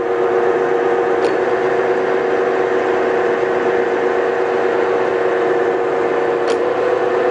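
Blanchard 11-16 rotary surface grinder running with a steady motor hum as its wheelhead moves on the power rapid traverse. Two brief clicks, about a second in and near the end.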